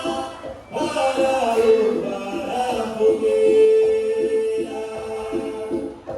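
Quadrilha junina dance music with singing: a melody with a long held note in the middle, over a regular pulsing beat, briefly dropping away less than a second in.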